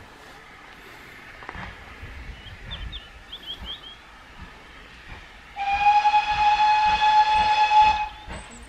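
Steam locomotive whistle sounding one steady, loud blast of about two and a half seconds, starting a little past the middle, over a low background rumble.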